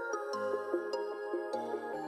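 Background music: a soft instrumental with held melody notes over a bass line that changes every half second or so, and light ticking percussion.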